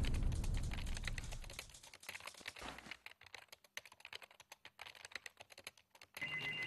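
Rapid, irregular clicking of typing on a computer keyboard. Near the end an electronic telephone ring starts.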